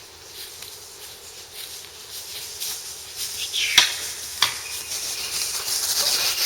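Rustling and crunching of dry leaves and brush, growing louder toward the end, with two sharp snaps about four seconds in.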